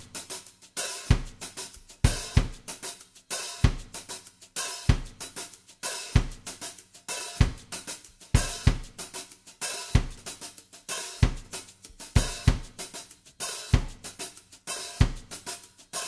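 Footsteps of a hiker walking a dirt and leaf-litter trail, heard close-up through a camera worn on the body. The steady walking rhythm has a crunching step about every half second and a heavier thump about every second and a quarter.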